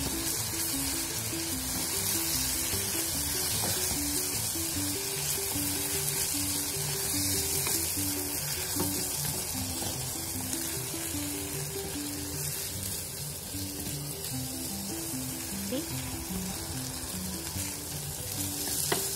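Tuna, onion and tomato sauce sizzling in a hot nonstick frying pan as they are stirred with a spatula, a steady frying hiss. Background music with held notes plays along with it.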